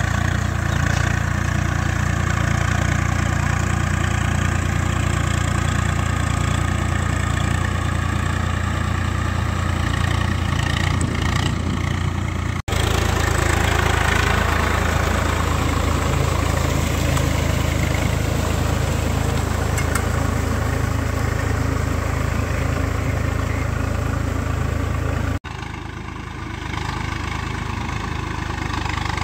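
Swaraj 855 tractor's three-cylinder diesel engine running steadily as it works a flooded, muddy paddy field. Heard close to the engine in the middle stretch, with two abrupt cuts in the sound, and a little quieter after the second cut near the end.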